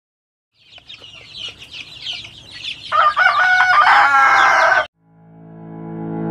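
A rooster crows loudly about three seconds in over high chirping, and the crow is cut off suddenly. Ambient music fades in near the end.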